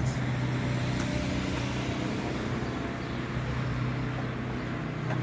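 Street traffic noise with a vehicle engine running nearby: a steady low hum.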